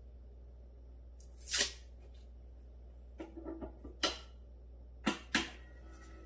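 Paper ice cream capsule being handled and slid into the holder of a capsule soft-serve machine: a brief rustle of the cup, then a few light knocks and two sharp clicks as it is seated under the press.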